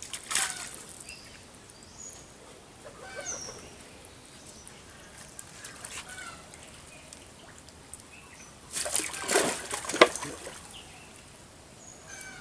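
Cast net being drawn out of pond water, with water splashing and dripping. A brief splash comes at the start, and a run of heavier splashes about nine to ten seconds in.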